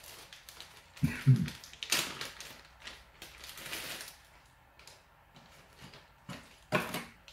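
Hard parts of a computer motherboard and its armour cover being handled, giving scattered clicks, taps and knocks. The loudest knocks come about a second in, at two seconds and near the end.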